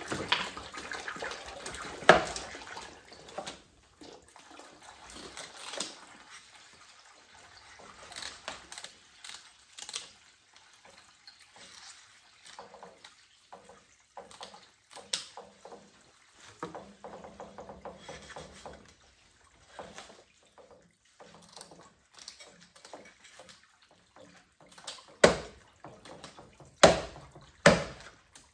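Water splashing and running as fish are rinsed and handled, fading after the first few seconds into scattered small splashes, drips and clicks. Near the end, a run of loud, sharp knocks about a second apart.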